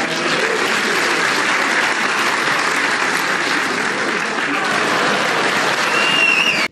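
Arena crowd applauding a snooker century break.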